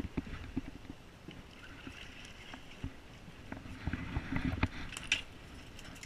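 Deck noise on a fishing boat on the water, with scattered light clicks and knocks as a chub mackerel is reeled in and swung aboard. A cluster of louder knocks comes about four to five seconds in.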